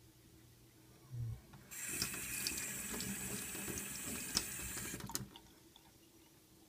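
Kitchen tap running water onto a knife blade and into a stainless steel sink for about three and a half seconds, then cut off suddenly. A short low thump comes just before the water starts.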